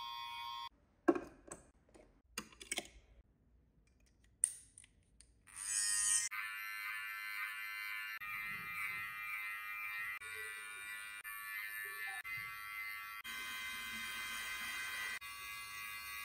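Electric hair clippers buzzing steadily with a high hum. They drop out for several seconds with a few sharp clicks, then run steadily again from about five and a half seconds in as the blade cuts a fade.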